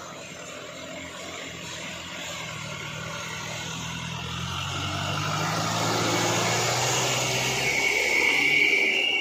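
Diesel engine of a loaded Toyota Dyna light truck pulling slowly toward and past, growing steadily louder as it comes close. A high whine joins in near the end as the truck draws alongside.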